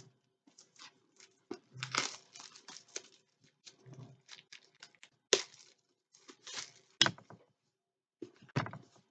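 Wrapping on a hardcover book being torn open and crinkled by hand in irregular bursts, with three sharp snaps in the second half.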